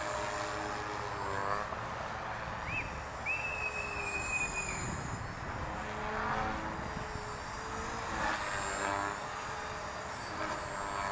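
Electric 450-size RC helicopter flying aerobatic manoeuvres, its rotor and motor whine rising and falling in pitch several times as it swoops back and forth.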